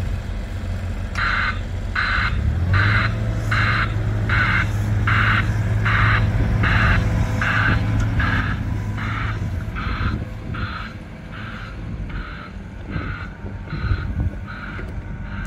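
JCB 3-tonne site dumper's diesel engine running as it drives off loaded with spoil, its warning alarm beeping steadily about three times every two seconds from about a second in.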